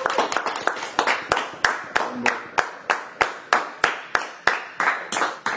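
A small group clapping in steady applause, about three claps a second.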